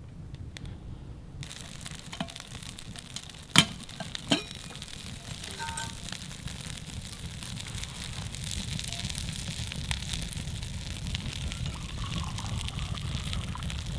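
Campfire burning with a dense, steady crackle and hiss that sets in about a second and a half in. Two sharp knocks come about three and a half and four seconds in.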